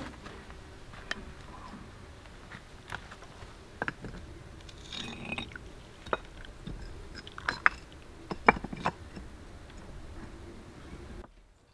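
Coffee poured from a moka pot into cups, with scattered clinks and knocks as the pot and cups touch each other and the stone they stand on. The two loudest knocks come late, as a cup is set down. The sound cuts off near the end.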